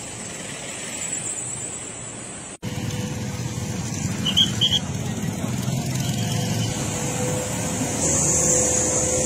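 Road traffic: engines of queued vehicles, then an abrupt cut about two and a half seconds in to louder motorcycle engines riding past over a dirt road. A steady hum runs underneath, and two short high chirps come near the middle.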